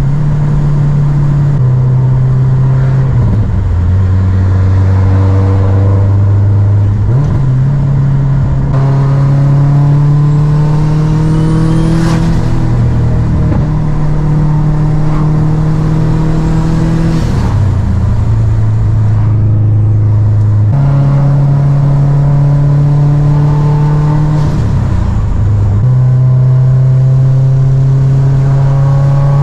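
Subaru WRX STI's turbocharged flat-four engine heard from inside the cabin while driving. The engine note holds steady for a few seconds at a time, then drops and climbs again several times as the throttle and gears change.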